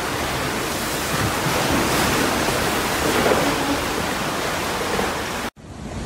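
Floodwater rushing and churning through a house's flooded ground floor, a steady loud rush. It cuts off abruptly near the end, and a duller, steady noise follows.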